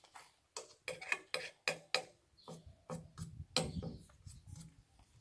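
Small hard objects clicking and knocking together as grooming kit is rummaged through by hand: a quick, irregular series of clatters.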